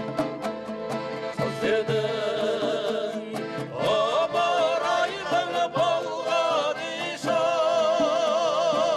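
Traditional Kazakh folk music: a melody sung with wide vibrato over instrumental accompaniment, after sharp plucked or strummed strokes in the first second.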